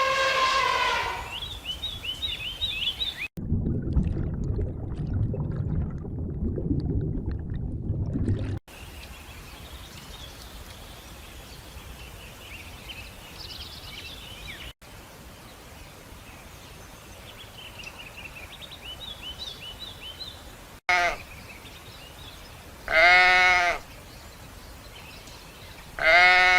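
Sheep bleating: several separate loud calls, each a single wavering cry. A low, noisy stretch of a few seconds comes in the first third, and faint high chirping is heard in between.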